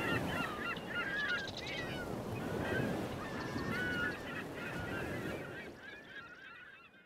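A flock of birds calling, many short overlapping calls, fading out near the end.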